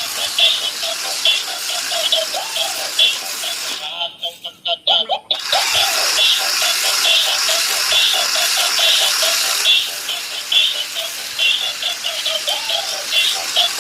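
Electronic music with a quick, busy repeating pattern, cutting in and out briefly about four seconds in.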